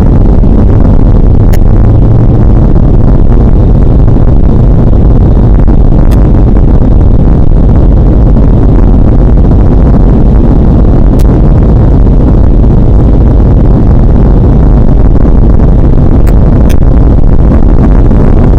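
Steady, very loud drone of the PZL-104 Wilga's engine and propeller in cruise flight, heard from inside the cockpit, mixed with the rush of air past the cabin.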